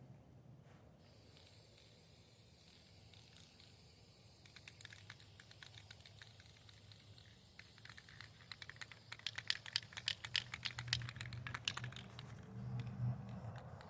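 Faint, quick, irregular scratching clicks of a paintbrush working paint onto wooden table legs, growing denser about halfway through.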